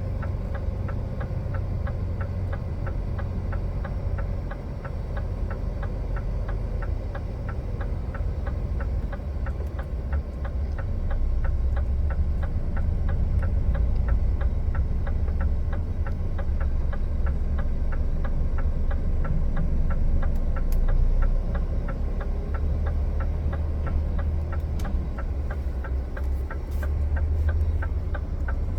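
Truck's diesel engine heard from inside the cab as a steady low rumble while driving, with an even ticking of about three a second running over it. The rumble grows a little louder about halfway through.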